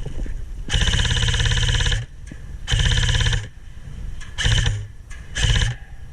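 Krytac LMG airsoft electric gun firing full-auto suppressing bursts: a long burst of about a second and a half, a shorter one, then two quick short bursts, each a fast rattle of shots over the gearbox whine.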